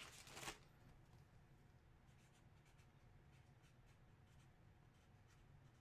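Near silence: faint room tone with a low hum. A brief rustle comes in the first half second, and a few faint soft scratches follow.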